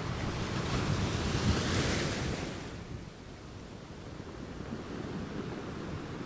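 Rushing noise of wind on the microphone over a small stream running among rocks, swelling with a gust during the first couple of seconds, then settling to a lower, steady rumble.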